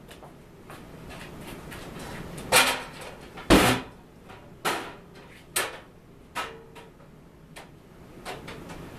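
About half a dozen irregular knocks and bumps, the loudest about three and a half seconds in.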